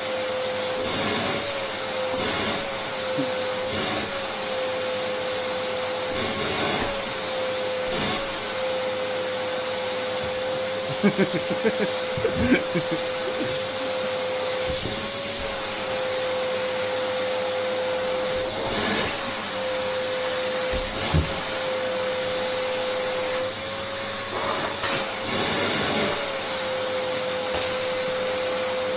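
Vacuum cleaner motor running with a steady whine that wavers briefly in pitch every second or two. A few short knocks come about eleven to twelve seconds in.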